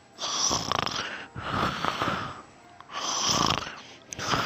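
A sleeping person snoring, breathing noisily in and out: four breaths, each about a second long, with short pauses between them.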